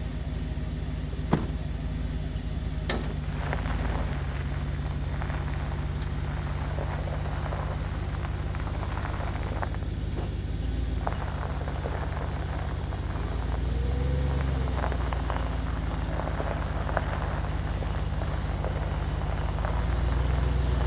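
Chevrolet Silverado pickup's engine idling, then the truck pulling away slowly across a dirt and gravel pad, the engine getting louder as it moves, with crunching from the tyres. A single sharp knock about a second in.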